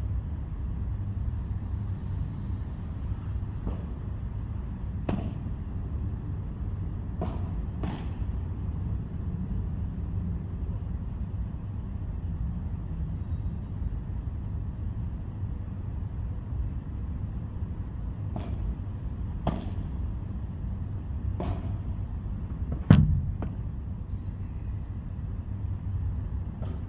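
Padel ball being played: sharp cracks of racket strikes and the ball off the court, in two short spells with the loudest crack near the end. Underneath runs a steady low rumble and a constant high thin whine.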